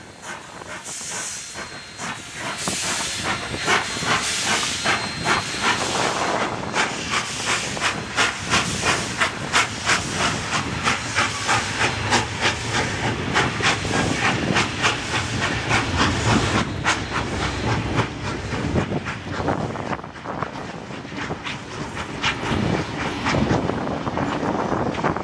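NSWGR C32 class steam locomotive 3265 passing close with loud steam hiss, then the wheels of its tank wagon and passenger carriages clattering rapidly over the rail joints, growing quieter toward the end as the train draws away.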